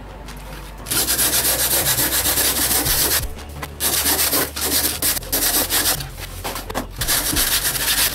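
Hands brushing and rubbing dried sand off a sheet of cold-press watercolour paper. The rubbing starts about a second in and comes in several spells with brief pauses.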